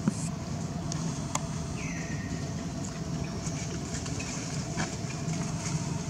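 Steady outdoor background noise with a low hum, a few faint clicks, and a short high call about two seconds in that drops in pitch and then holds.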